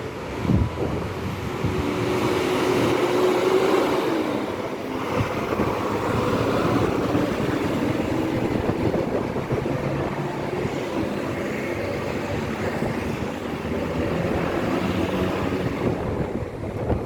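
Strong wind buffeting the microphone, over the steady running of bus engines at a terminal, with a low hum that wanders slightly in pitch.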